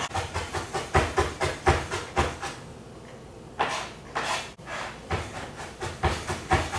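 Fast, regular knocking or tapping, about five strokes a second, that stops about two and a half seconds in; two short hissing rushes follow, then the knocking starts again.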